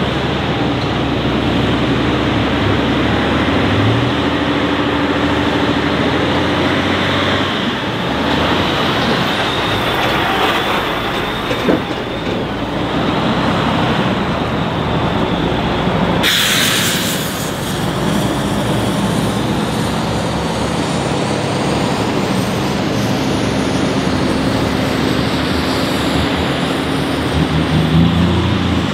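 Heavy Tatra off-road trucks' diesel engines running as they drive through mud and water. A short loud hiss comes about sixteen seconds in, and an engine revs up near the end.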